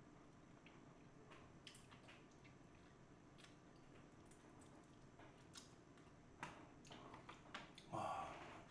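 A person chewing food quietly, with faint scattered mouth clicks and smacks that come more often toward the end, and a brief louder mouth or breath sound near the end.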